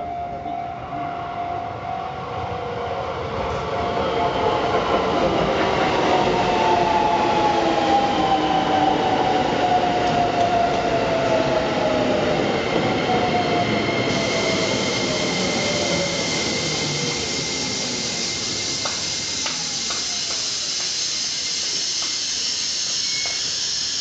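Shin-Keisei N800-series electric train arriving and braking. Its inverter and traction-motor whine falls steadily in pitch as it slows. In the second half, high steady squealing tones take over as it draws to a stop, with a few clicks near the end.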